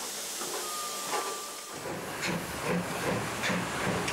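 DB class 03.10 steam locomotive hissing steam. From a little under two seconds in, a regular beat of about three strokes a second joins the hiss, typical of a steam engine's exhaust as it works.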